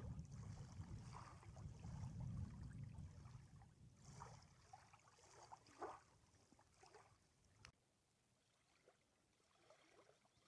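Very faint shallow sea water lapping and splashing at the shoreline, with a low rumble of wind on the microphone over the first four seconds that then dies away.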